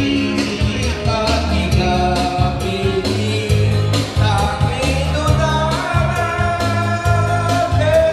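A man singing into a microphone over amplified backing music with a bass line and a steady beat.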